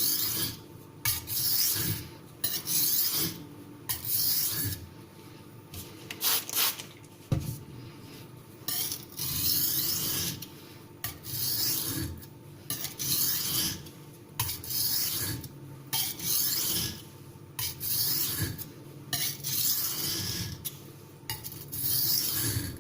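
A Spyderco kitchen knife with an MBS-26 steel blade is stroked back and forth across a wet Missarka 500-grit sintered aluminium oxide water stone under about a kilogram of pressure. Each stroke gives a gritty rasping hiss, about one stroke a second, with short pauses between. This is the coarse-grit stage that sets the edge bevel before polishing.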